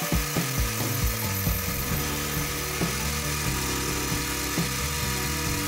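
Background music with changing bass notes and repeated hits, over the steady running of a small bench metal lathe turning a case-hardened steel ball screw under the cutter.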